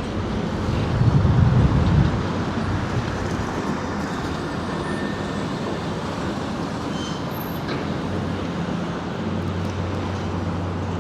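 Road traffic noise: a steady rumble of passing vehicles, loudest for a moment in the first couple of seconds, with a steady low engine hum setting in near the end.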